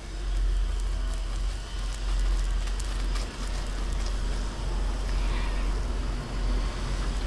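Dense crackling and hiss over a steady low rumble, with many small clicks scattered through it.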